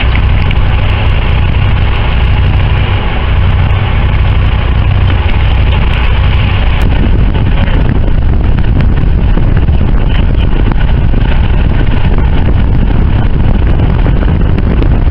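A fishing boat's engine running steadily: a loud, even rumble with no break.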